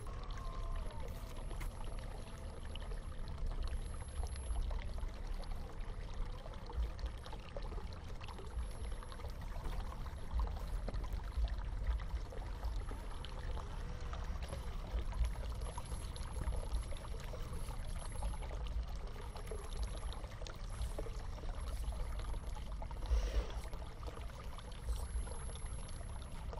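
Water running and trickling over a steady low rumble, with faint scattered ticks.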